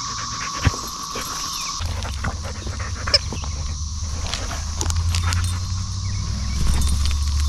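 A dog mouthing and chewing a rubber toy close to the microphone, a string of short sharp clicks and taps. For the first two seconds insects buzz steadily with a fast pulse; from then on a low rumble runs under the chewing.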